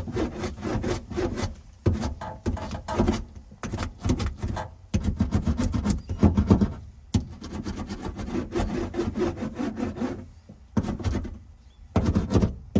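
Hand roller pressed and rolled back and forth over sound-deadening mat inside a car, a repeated rubbing, rasping noise in uneven strokes that pause briefly near the end.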